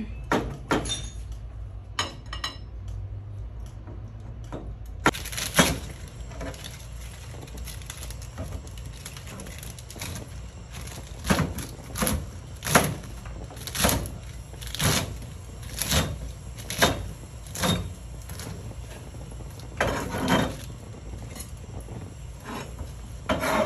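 Chinese cleaver chopping cabbage on a plastic cutting board: a run of sharp knocks about one a second, strongest in the second half.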